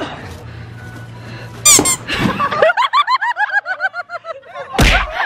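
A loud thump about two seconds in as a man falls on the grass after kicking at a piñata, then a long run of high-pitched, squeaky laughter in quick even bursts, several a second, with another thump near the end.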